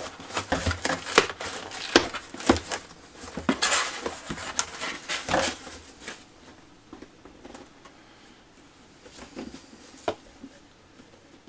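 Cardboard box and plastic model-kit parts being handled: busy rustling, tapping and clicking for the first six seconds, then a few scattered clicks with a sharper knock about ten seconds in.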